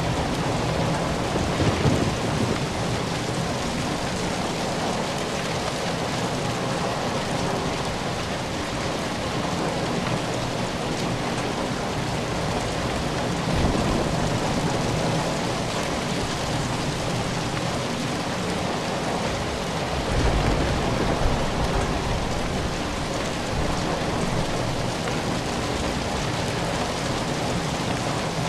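Steady rain falling and pattering on surfaces, with low rumbles of thunder swelling up a few times.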